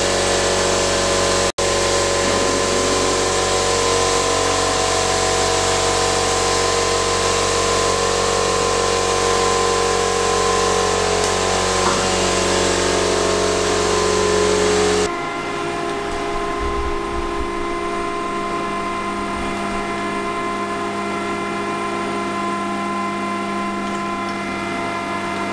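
Meat bowl cutter running, a loud steady machine noise with several steady tones. About fifteen seconds in it gives way to a quieter steady machine hum from a sausage filler pushing meat into casing.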